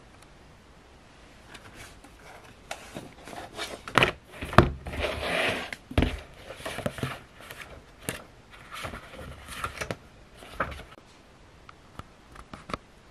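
A thick hardcover book handled and set down on a desk: a run of knocks, scrapes and rustles, the loudest a few seconds in.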